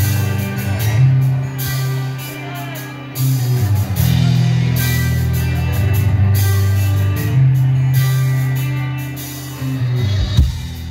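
A live band playing loud rock music: acoustic guitar over deep bass notes and a drum kit with regular cymbal hits. The music briefly drops out near the end.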